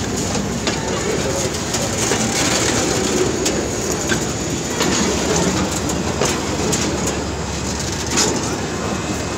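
Freight train tank wagons rolling past close by: a steady rumble of wheels and bogies on the rails, with sharp clacks about once a second as the wheels cross rail joints.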